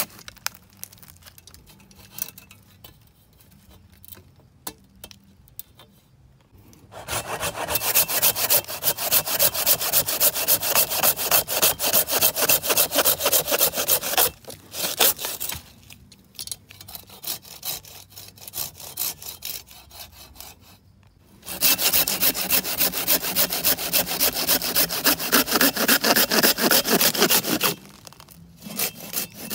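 A hand saw cutting through wood in quick, even back-and-forth strokes, in two long spells of about six or seven seconds each, with quieter stretches before and between them.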